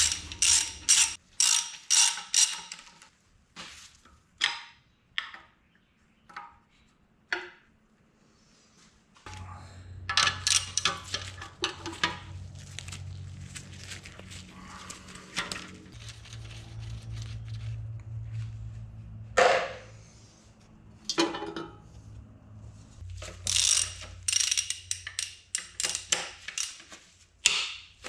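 Hand ratchet wrench clicking in quick runs while bolts are undone during an engine teardown, with scattered single clicks and clanks of tools and parts. A low steady hum sets in about nine seconds in and stops a few seconds before the last run of ratcheting.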